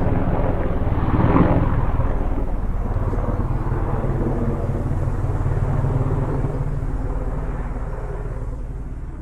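Distant helicopter flying, its rotor and engine rumble swelling briefly about a second in, then slowly fading as it moves away.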